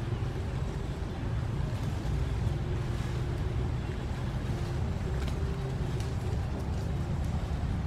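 A steady low rumble of background noise with a faint, broken hum above it. No monkey calls stand out.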